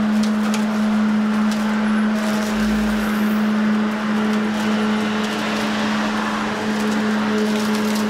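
Lawn mower running steadily while cutting grass, with an even hum.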